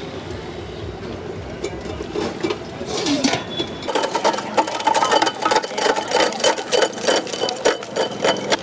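KAWANI ice crusher grinding blocks of ice into small pieces: a rapid, dense crunching clatter that becomes louder and steadier about four seconds in.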